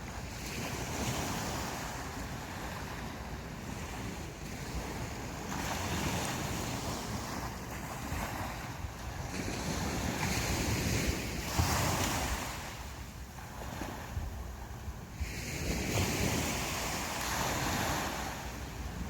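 Sea waves breaking and washing up the beach, surging in and drawing back every few seconds, with the largest wash about two-thirds of the way in. Wind rumbles steadily on the microphone underneath.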